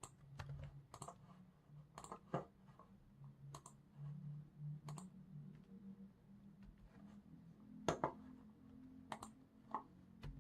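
Sparse, irregular keystrokes on a computer keyboard, with mouse clicks among them and uneven pauses between strokes.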